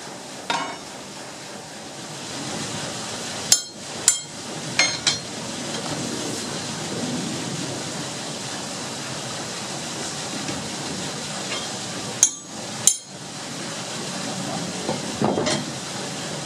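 Sharp metallic clanks as the iron clamping dogs on a sawmill's log carriage are knocked and set with an iron bar to reposition a plank by hand. There are about nine knocks, several in quick pairs, over a steady background noise from the running mill.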